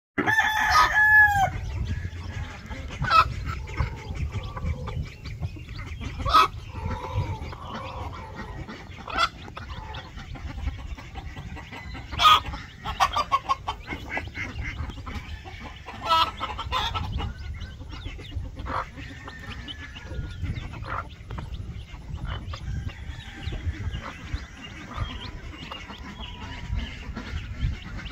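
Silver Phoenix game cross hen clucking to her brood of young chicks, with the chicks peeping. A loud drawn-out call opens, and short sharp calls come every few seconds after it.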